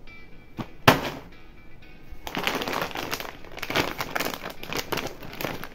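Lay's potato chip packet crinkling and rustling as it is handled, with one sharp crackle about a second in and denser crinkling from about two seconds on, over background music.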